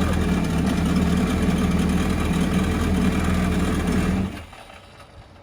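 Four-stroke jet ski engine idling steadily, run to circulate freshly changed oil. It is switched off about four seconds in and cuts out suddenly.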